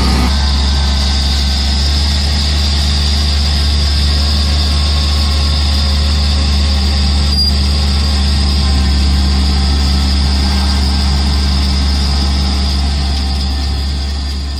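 Engine running steadily with a deep, even hum and a high whine above it.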